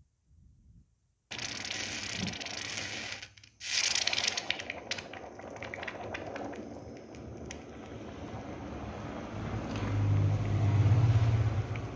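Water in a paper cup hissing and crackling around a 12-volt DC heater coil, a diesel engine's starting heater, as it comes up to the boil. The sound starts suddenly about a second in, with many small crackles, and a low hum swells near the end.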